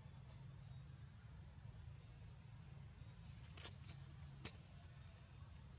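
Near silence under a faint, steady high insect chorus, like crickets, shrilling on two even high tones, with a couple of faint ticks about four seconds in.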